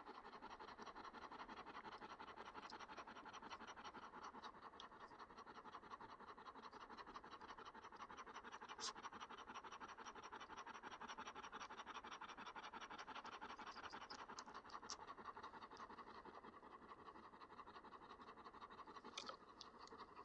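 Near silence: a faint, steady rasping hiss, with a soft click about nine seconds in and another near the end.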